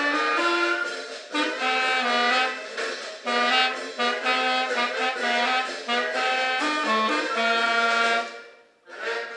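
A free-reed instrument, of the accordion or harmonica kind, playing a melody in held notes over a lower accompaniment. The playing breaks off briefly near the end, then starts again.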